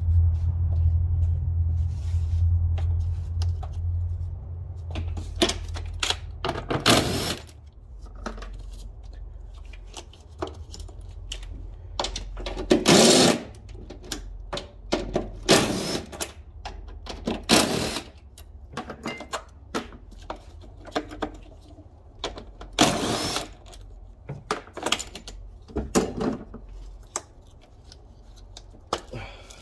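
Mechanic's work in the engine bay of a Nissan/Infiniti 3.5 V6: a steady low hum that stops about seven seconds in, then a string of short, loud rattling bursts from a cordless power tool, mixed with the clank of tools and parts.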